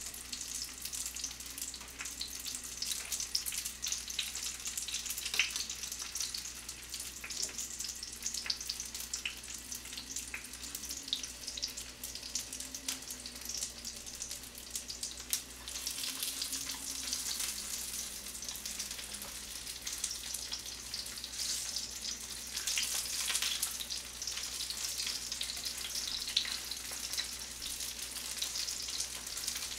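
Frozen king dumplings (wanggyoja) sizzling as they pan-fry, a steady crackling hiss, with a pot of noodles boiling alongside.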